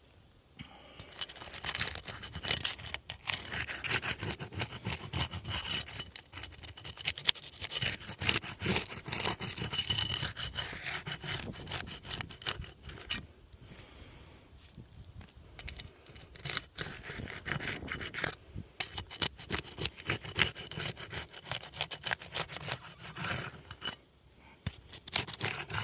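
Flat pry bar scraping and prying under 3-tab asphalt shingles to break their adhesive seal loose: repeated rasping strokes with a few short pauses.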